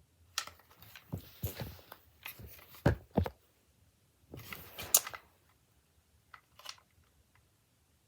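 Objects being handled: a run of clicks, knocks and rustling, sharpest near three seconds in, then a second short flurry ending in a sharp click about five seconds in, and a few faint clicks after.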